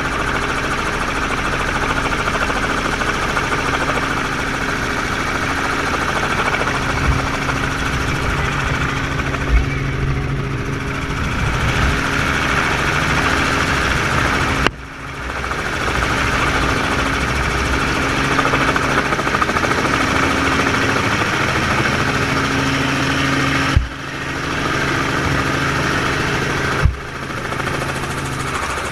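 Small helicopter's engine and rotor running steadily in flight, a steady low hum under a rushing noise, heard from the open cabin side. The sound breaks off briefly with a click about halfway through and twice near the end.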